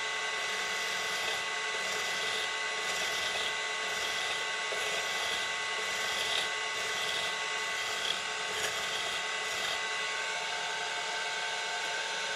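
Brass stock spinning on a woodworking lathe while a woodturning tool scrapes it, a continuous metallic rasp over the steady whine of the lathe's three-phase induction motor, with a few small ticks. Near the end the whine dips slightly in pitch.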